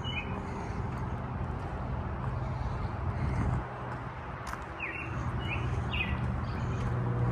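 A small bird chirping in quick, short downward-sliding notes, in two brief bursts: one at the very start and one about five seconds in. Under it runs a steady low hum and a background haze of noise.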